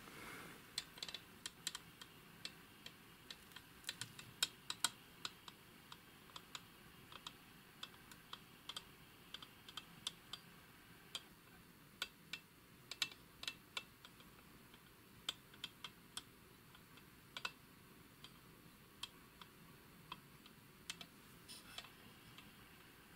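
Faint, irregular light clicks and taps, scattered unevenly through the stretch, from hands handling and tilting the metal case of a Sperry aircraft gyro unit.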